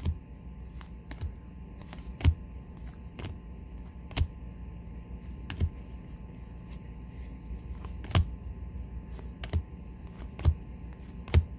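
Trading cards being flipped through by hand, giving sharp irregular clicks and snaps roughly once a second, over a low steady hum.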